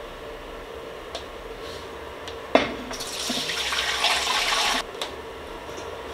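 A single metal clank, then milk pouring from one pot into a large canning pot for about two seconds, stopping abruptly.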